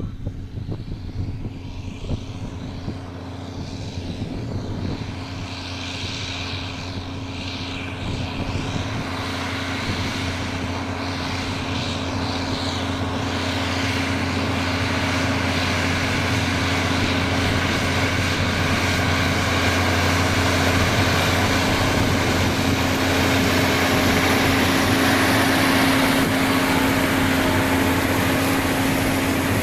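John Deere four-wheel-drive tractor's diesel engine running steadily under load as it pulls a Balzer liquid manure tanker with soil injectors, growing steadily louder as it draws near.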